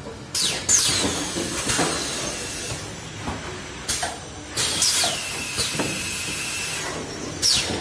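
Automatic carton case packer running, with sharp bursts of hissing every second or so, some with a falling whistle, over steady machine noise: typical of its pneumatic cylinders exhausting air as they cycle.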